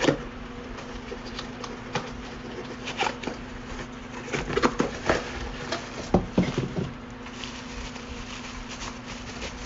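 Scattered light clicks and taps of handling, over a steady low hum.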